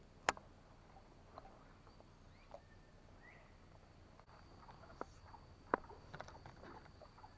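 Scattered faint clicks and knocks. The sharpest comes about a third of a second in, and a small run of them comes near the end. A thin, steady high whine begins about halfway through.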